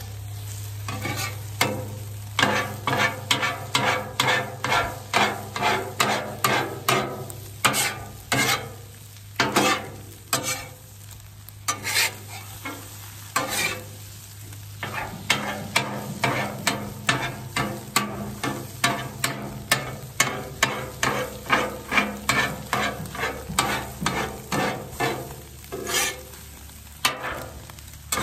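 Metal spatula scraping and chopping scrambled eggs on the steel top of a Blackstone 28-inch griddle, about two strokes a second with a short pause about halfway, over the steady sizzle of the eggs frying.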